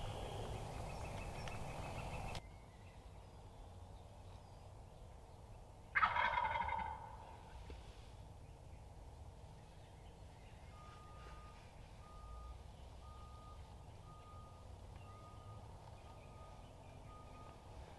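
Wild turkey gobble about six seconds in: one loud, sudden rattling call that drops in pitch and fades over about a second. Later a faint high note repeats evenly, about two a second.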